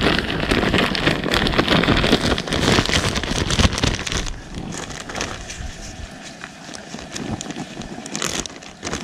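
A bag of cornmeal with fish inside being shaken, rustling and crackling hard for about four seconds to coat the fish, then quieter, scattered rustles and handling clicks.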